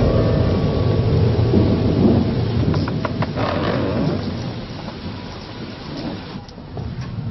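Thunder rumbling long and low over steady rain, slowly fading away.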